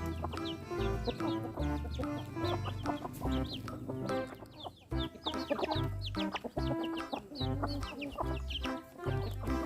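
Chickens clucking over background music that has held notes and a repeating bass line.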